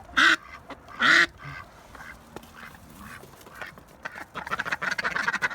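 Domestic ducks quacking: two loud quacks in the first second and a half, a few softer ones after, then from about four seconds in a fast run of quieter quacks.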